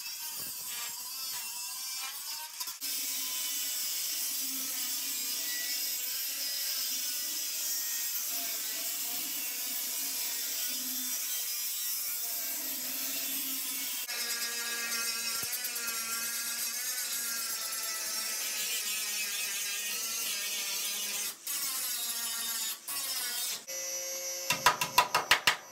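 Chicago Electric angle grinder running against steel, grinding down welds on body patch panels, its pitch wavering as the disc bites and eases off, with a couple of short breaks. Near the end, a quick run of sharp hammer taps on sheet metal.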